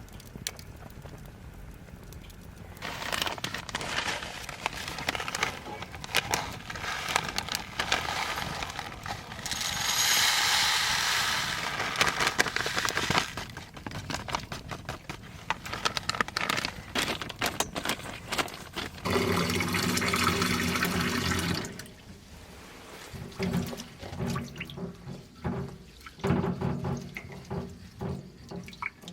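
Liquid being poured, with a bright hissing stretch about ten seconds in, among scattered clicks and handling sounds.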